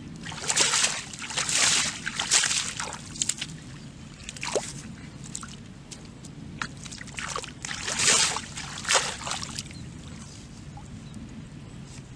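Shallow muddy water splashing and sloshing as hands and feet move through it, in a string of short, irregular splashes that come in two clusters, early and again about seven to nine seconds in.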